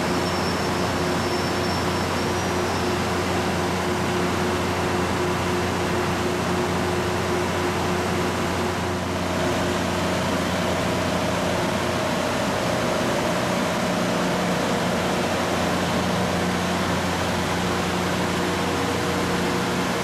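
LORAM rail grinder running steadily: an even mechanical noise with a low, constant hum.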